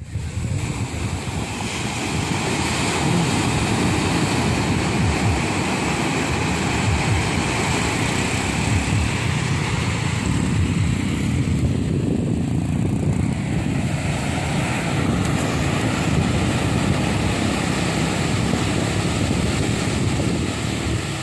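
Small waves breaking and washing up over a flat sandy beach: a continuous low rushing of surf, with wind rumbling on the microphone.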